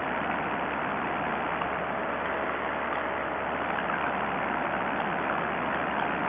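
Two-stroke paramotor engine and propeller running steadily in flight: a constant drone with a faint steady tone, mixed with rushing air.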